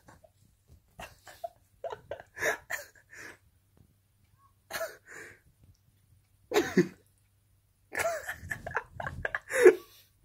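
A person's stifled laughter: short snorts and coughs coming in clusters every second or two, the last cluster the longest and loudest.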